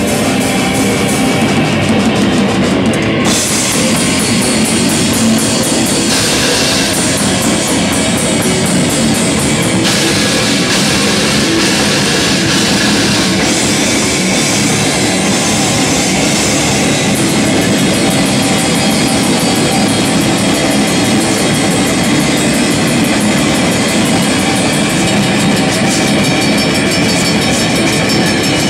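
Black metal band playing live, heard loud and dense: distorted electric guitars over rapid drumming with constant cymbals.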